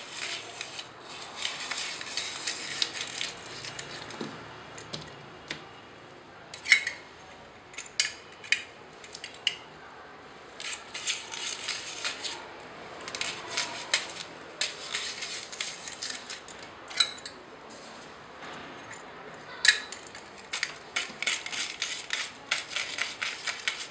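Stainless steel rotary drum grater hand-cranked through cucumber, with runs of rapid metallic clicking and rasping as the drum turns. Between the runs come a few single, louder sharp metal clacks.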